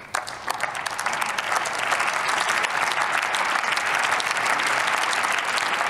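Members of parliament applauding in the plenary chamber. The clapping starts at once and swells over the first couple of seconds into steady applause.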